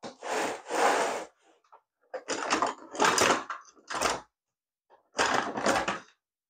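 Plastic parts of a toy robot's body being forced and cut apart with a tool to free the gearbox, in about five short bursts of scraping and grinding.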